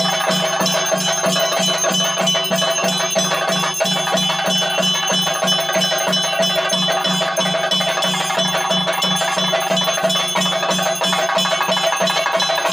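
Theyyam percussion ensemble: chenda drums beaten in a fast, even rhythm of about four strokes a second, with metal hand cymbals ringing over them.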